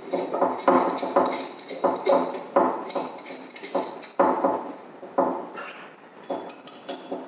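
Hex key clinking against a screw and the aluminium frame plate as it is turned again and again to drive a frame screw home, about two short metallic clinks a second at an uneven pace.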